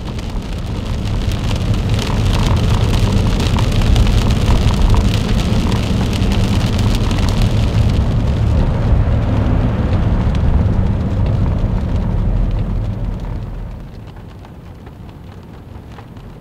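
Storm wind and rain against a car, heard from inside: a heavy, steady rumble with rain pattering over it, dropping to a quieter rumble about three-quarters of the way through.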